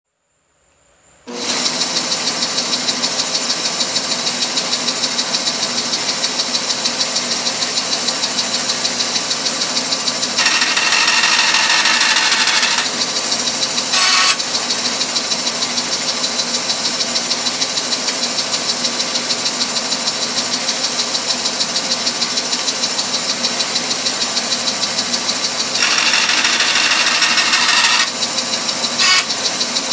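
Shopsmith bandsaw starting up about a second in and then running steadily with an even pulse. Twice it cuts through copper bar stock, each cut a harsher, brighter grinding sound lasting about two seconds, with a short flare of the same sound soon after each one.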